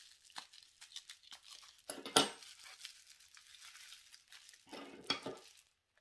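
Crinkling and tearing of packaging wrap as a crystal is unwrapped by hand, with small clicks and rustles and a louder rip about two seconds in.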